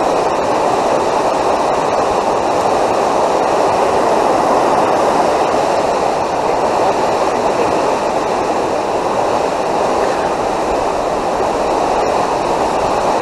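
Steady, even rushing of flowing water.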